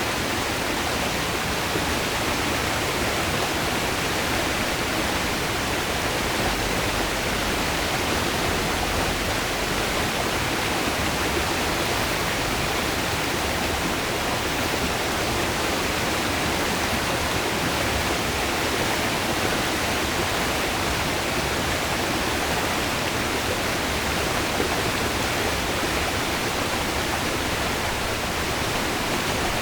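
River flowing: a steady, even rush of water that never lets up.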